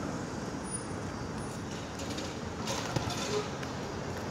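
PCC streetcar rolling away along its tracks, a steady low rumble of running noise, with a short hiss and a click about three seconds in.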